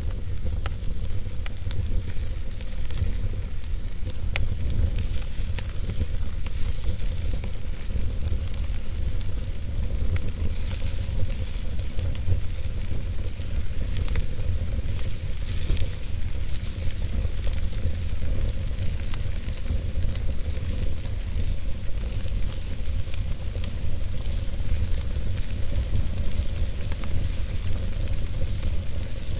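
Wood fire burning in a fireplace: a steady hiss with scattered sharp crackles and pops from the burning logs, over a low rumble.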